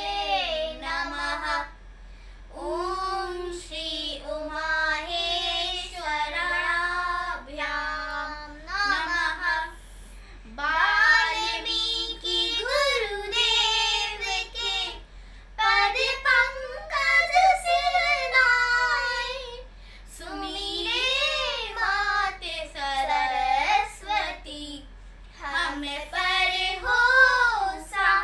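Two children singing a Ramayan katha, a devotional retelling of the Ramayana, in sung phrases with short breaks for breath and no instruments heard.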